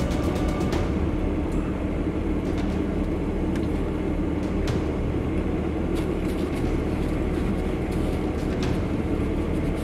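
Steady low hum of an idling car engine, heard from inside the car, with scattered small clicks over it.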